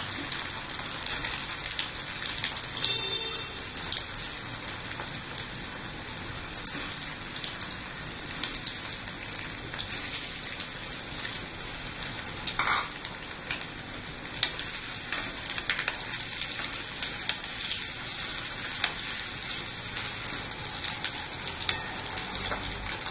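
Half-boiled potato pieces frying in hot olive oil in a metal wok: a steady crackling sizzle with scattered louder pops.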